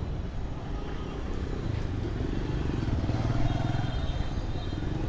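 Diesel bus engines running with a steady low rumble that grows a little louder about three seconds in.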